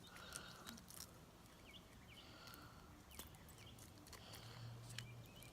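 Near silence: faint room tone with a few soft scattered clicks.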